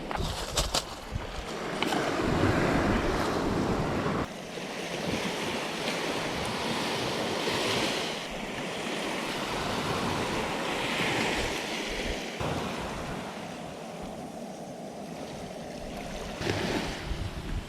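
Seawater washing and surging with wind buffeting the microphone, a continuous rushing that shifts abruptly about four seconds in and again around twelve seconds. A few small clicks just at the start.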